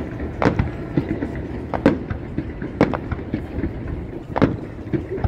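Fireworks going off: an irregular series of sharp bangs and cracks, one or two a second, over a steady background din.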